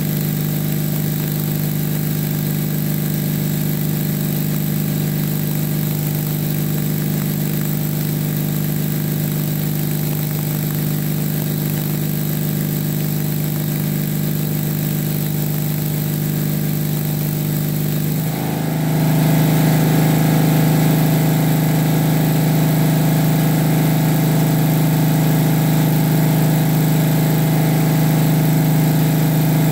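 Onan twin-cylinder engine running steadily. About 18 seconds in it suddenly gets louder and changes tone, then holds at that new, steady running level.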